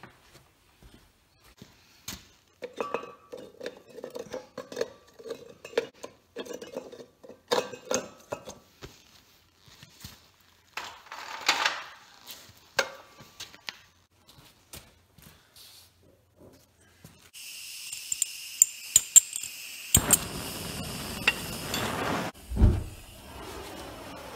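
Chunks of aluminium slag clinking and rattling as they are dropped and shuffled into a small metal crucible: many light metallic clinks over several seconds. In the last several seconds a steady hiss sets in, with a single thump near the end.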